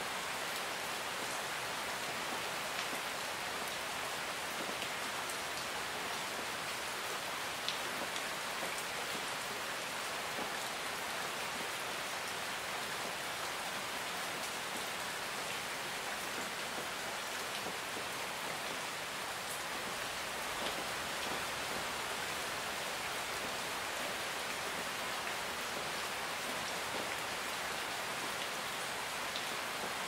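Steady medium rain: an even hiss of falling rain with a few sharper drop ticks now and then.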